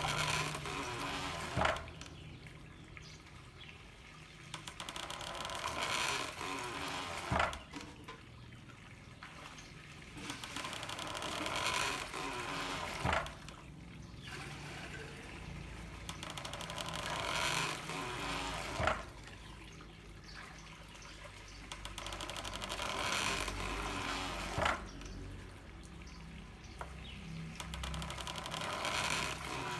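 Handmade water-powered corn mill working to a steady beat, with a sharp knock about every six seconds, five times in all. Between the knocks, water from bamboo pipes rushes and swells.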